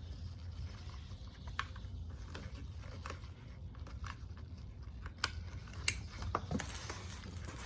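Scattered small clicks and rustles of hands handling a steering wheel's wiring connectors and plastic parts, the sharpest click a little before six seconds in, over a low steady hum.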